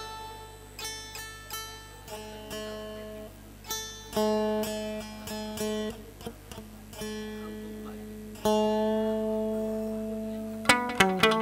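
Chầu văn ritual music on a plucked string instrument: slow single notes that ring on, quickening into a fast run of notes about a second before the end.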